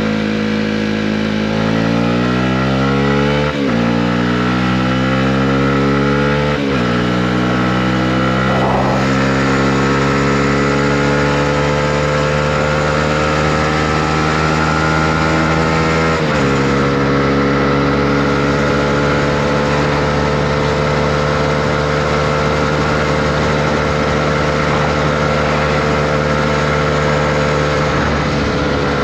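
Honda CB125R's single-cylinder four-stroke engine pulling through the gears under riding. Its pitch climbs and drops sharply at three upshifts, then holds at a nearly steady cruise.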